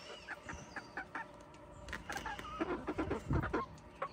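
Domestic hens clucking in short, quick notes, some bending in pitch, with a louder cluster of calls about three seconds in.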